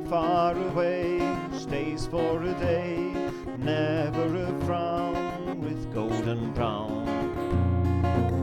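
Music: acoustic guitar playing, with a wavering melody line above it and no words sung.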